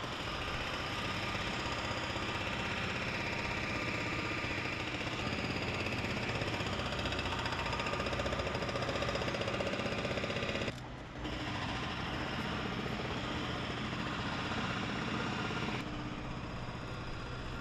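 Steady mechanical rattle and rumble of a machine running on a city street, dropping away briefly about eleven seconds in.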